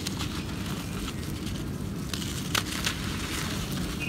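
Dry lumps of gritty soil crumbled in the hands, a steady gritty crackle with scattered small crunches and one sharper crunch about two and a half seconds in, as loose dirt trickles down.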